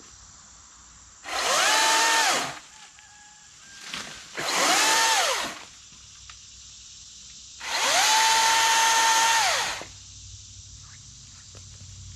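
Milwaukee M18 Fuel 14-inch top-handle battery chainsaw run in three short bursts: each time the motor and chain whine up to a steady high pitch, hold, and wind down again. The last run is the longest, about two seconds.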